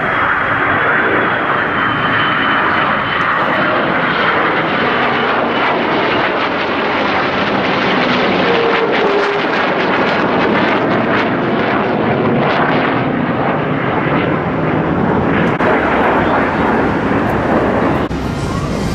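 Fixed-wing airplane flying, its engine noise loud and steady, with a faint high whine that drops a little in pitch over the first few seconds.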